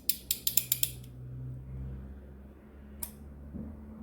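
Ratchet head of a 1/2-inch drive Toledo torque wrench clicking quickly, about eight clicks in the first second, then stopping. A single click follows about three seconds in.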